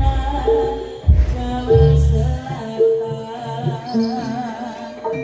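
Javanese jaranan music: a woman singing over held pitched instrument notes, with deep drum strokes at the start and again about a second in.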